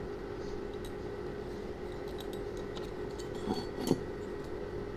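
Light metallic clicks and taps of a caliper being worked against an aluminium motorcycle cylinder head as its exhaust port is measured, with two small knocks a little after three and a half seconds in. A steady hum runs underneath.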